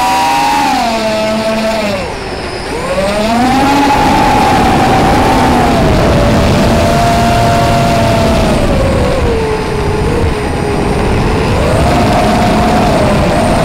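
FPV racing quadcopter's brushless motors and propellers whining, the pitch rising and falling as the throttle changes, with a sharp drop and recovery about two seconds in and a slower dip later. Air rushing over the onboard microphone sits under the whine.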